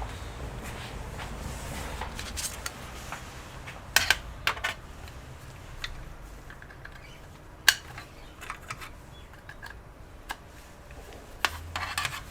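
Scattered sharp clicks and light taps of small computer parts and screws being handled during disassembly, the loudest about four seconds in and again a little before eight seconds.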